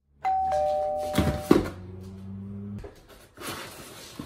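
A short intro sound effect of steady held tones with two sharp hits about a second and a half in, cutting off abruptly just under three seconds in. Then soft knocks and rustling of a cardboard shipping box being handled.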